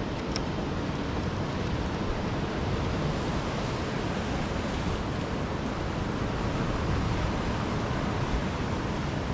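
Steady rushing of ocean surf, with some wind.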